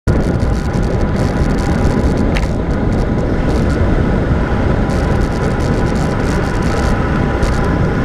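Loud, steady wind rushing over the microphone of a bike-mounted camera as a road bicycle descends at speed, with tyre noise from the asphalt.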